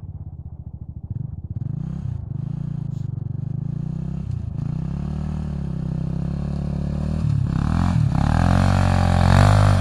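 Honda TRX400EX quad's single-cylinder four-stroke engine, a 426 big-bore with a stage 2 cam and White Brothers slip-on exhaust, revving up and falling back again and again as the quad is throttled through drifts. It pulses unevenly at low revs at first and grows louder near the end.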